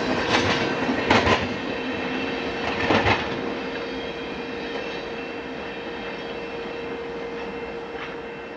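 Train rolling past on steel rails, its wheels clacking sharply over rail joints a few times, with a thin steady ringing tone from the wheels. The sound fades gradually as the train moves away.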